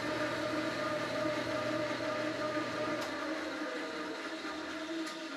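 Univex SRM planetary mixer running at speed 1 with a steady motor and drive whine. About three seconds in, the stop button clicks, the low rumble drops away and the whine starts to fall in pitch as the mixer winds down. There is a second click near the end.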